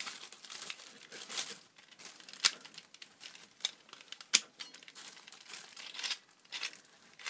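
Plastic packaging crinkling and rustling in hand as a twisty puzzle is unwrapped, with a few sharp clicks, the loudest about two and a half and four and a half seconds in.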